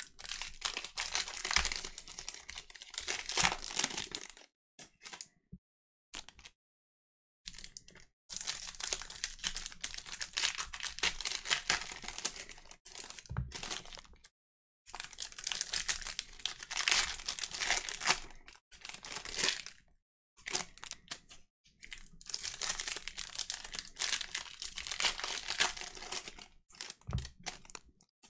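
Football card pack wrappers crinkling and tearing open, and the cards being handled and slid against each other, in stretches broken by a few short silences.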